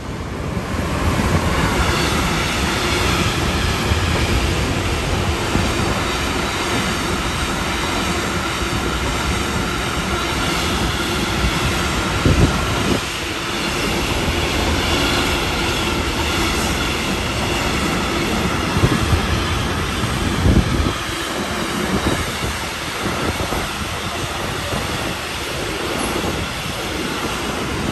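Electric-hauled container freight train passing close by on the station track: a loud, steady rumble of wheels on rail with a ringing wheel squeal, building as the locomotive comes by, and a few sharp clunks from the wagons partway through.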